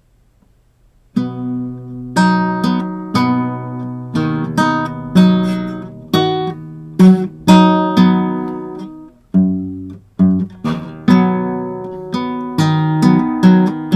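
Acoustic guitar strummed, starting about a second in: a chord struck every half second to a second, each ringing out, with a short break past the middle.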